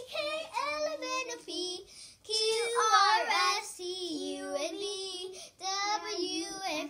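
A child singing a wavering, sliding tune in a high voice, with two short breaks, about two seconds in and again near the end.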